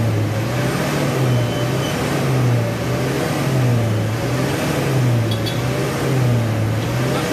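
Old Ford pickup's diesel engine running at idle. Its pitch swells and eases in a slow, even cycle about once a second.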